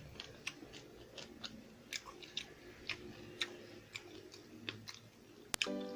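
Close-up chewing of a tough, non-crispy piece of fried pork: soft wet mouth clicks and smacks a few times a second. A sharp click comes near the end, and background music starts just before it ends.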